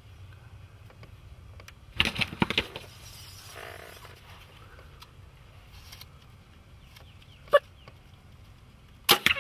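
Wild turkey gobbling, a loud rapid rattling call about two seconds in and another starting near the end, with a single short call in between.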